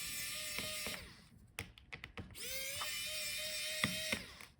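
Electric screwdriver backing out laptop hinge screws: a motor whine that stops about a second in, then a second run that rises in pitch, holds steady and stops shortly before the end, with a few sharp clicks.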